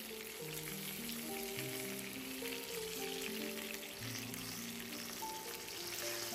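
Dried croaker fish frying in shallow oil in a nonstick pan: a steady sizzle with fine crackle, under background music of held notes.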